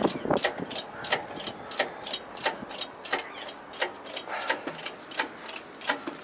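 Irregular sharp clicks and knocks, roughly two a second, from tools and parts being handled during a tyre and wheel change.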